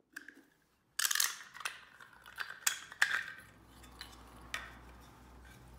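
Hard 3D-printed plastic parts clicking and knocking against each other and the wooden bench as they are picked up and handled. A quick run of sharp knocks starts about a second in, then thins to a few lighter clicks.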